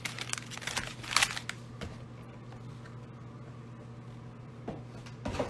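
Plastic-wrapped trading card packs crinkling and rustling as gloved hands pick them up and set them down, loudest about a second in, with a few more soft clicks near the end. A faint steady low hum runs underneath.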